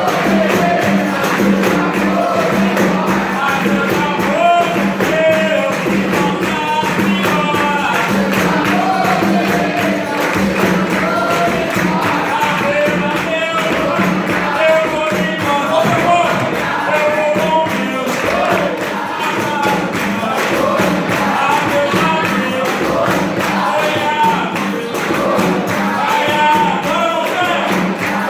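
Capoeira roda music: singing, with a group joining in, over a steady percussion rhythm that includes a pandeiro (tambourine).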